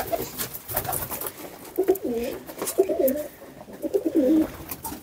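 Domestic pigeons cooing: three drawn-out, wavering coos in the middle, with a few sharp taps at the start.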